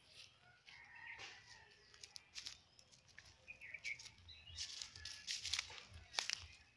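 Footsteps crunching through dry fallen bamboo leaves, coming roughly twice a second from about halfway through. Faint bird chirps come in the first half.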